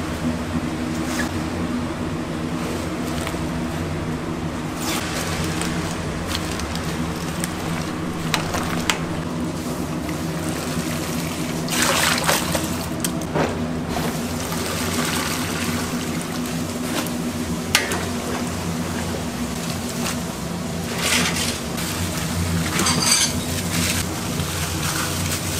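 Water sloshing, splashing and pouring as napa cabbage leaves are washed by hand in a basin of water, blanched greens are lifted out of hot water with a wire strainer, and freshwater snails are poured from a bag into water, with several short louder splashes. A steady low hum runs underneath.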